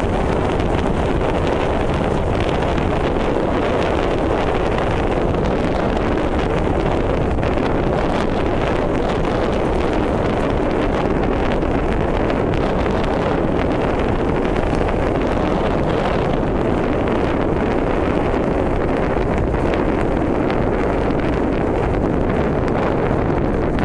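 Steady wind noise buffeting the microphone, over the constant rumble of a car driving at road speed.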